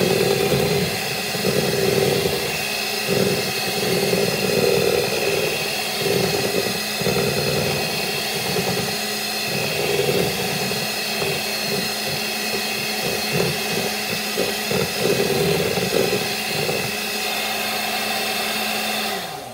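Electric hand mixer running steadily, its beaters churning through yellow cake batter in a bowl with an uneven slapping and knocking. The motor is switched off just before the end and winds down.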